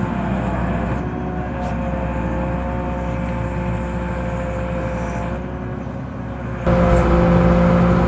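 An Åkerman H7Mc wheel excavator's Volvo TD61ACE diesel engine running steadily with a steady drone. About two-thirds of the way through, it suddenly becomes louder and closer, as heard from inside the excavator's cab.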